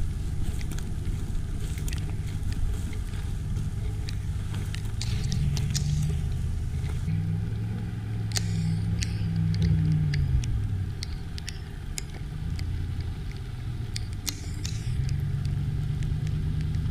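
A Ram 1500 Rebel pickup's 5.7-litre Hemi V8 running as the truck drives a sandy trail. The engine note rises, drops about ten seconds in, then rises again near the end, with scattered sharp clicks over it.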